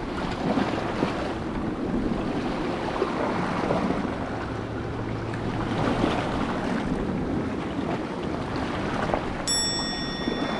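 Wind on the microphone and surf on the shore, making a steady rushing noise. Near the end a high, steady tone with overtones cuts in suddenly.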